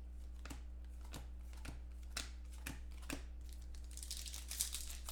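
Trading cards being handled and sorted by hand, with soft ticks about twice a second, then from about four seconds in the crinkle of a foil card pack being handled and torn open. A steady low hum runs underneath.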